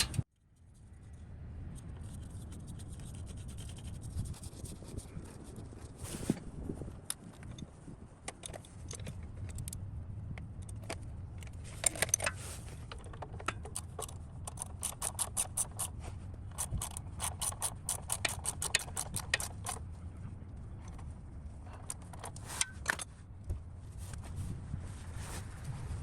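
Ratchet wrench clicking in quick runs, with metal scraping and clinking, as the oil drain nut and filter are tightened back in.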